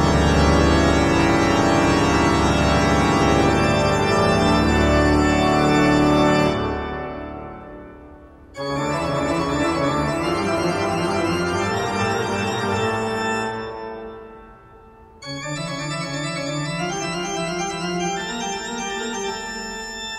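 Background music with sustained keyboard chords in three phrases; each phrase fades out, and a new one starts about eight and a half seconds in and again about fifteen seconds in.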